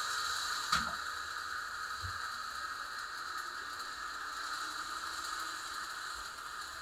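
Steady high whine of the small electric motors on a slot car and HO train layout, with a single sharp click about a second in.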